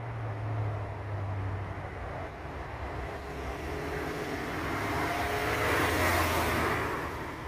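A road vehicle passing by, its engine and tyre noise growing louder to a peak about six seconds in, then fading.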